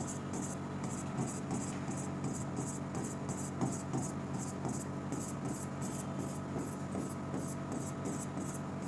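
Chalk scratching on a chalkboard as many small circles are drawn one after another, in quick short strokes about three to four a second.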